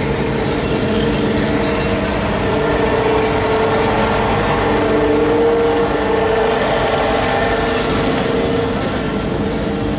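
Large Minneapolis-Moline tractor engine idling steadily.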